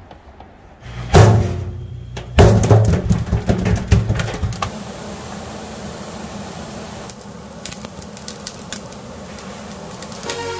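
Two deep booming hits about a second apart, each dying away in a low rumble. Then a steady hissing sizzle with small irregular crackles: whole salted river fish grilling on a wire rack over live charcoal.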